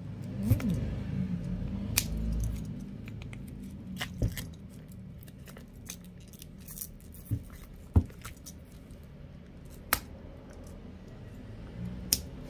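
Utility knife nicking and scraping at thick plastic shrink-wrap on a cardboard card box, with scattered sharp clicks and the rustle of the box being turned in the hands.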